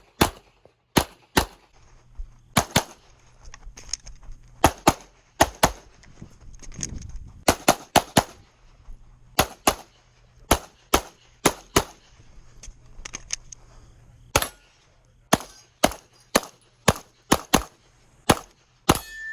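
Glock 34 Gen 5 9mm pistol fired rapidly through a USPSA stage: dozens of sharp shots, mostly in quick pairs, with short pauses between groups as the shooter moves between target arrays.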